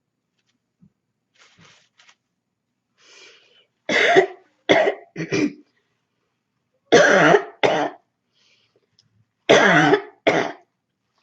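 A person with a cold giving a barking cough in three bouts: three coughs about four seconds in, then two, then two more near the end. A faint breath is drawn in before the first bout.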